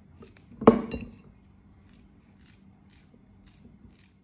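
A small kitchen knife clinks sharply once against a ceramic bowl about a second in, then cuts through peach held in the hand with a run of faint, soft clicks.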